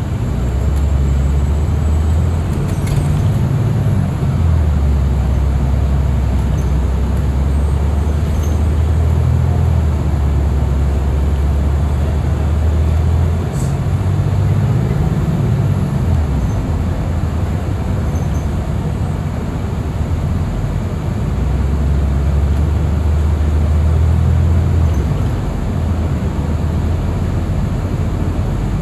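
Inside the cabin of a moving city transit bus: a steady low engine and drivetrain drone over road noise. The drone swells and eases a few times as the bus pulls along.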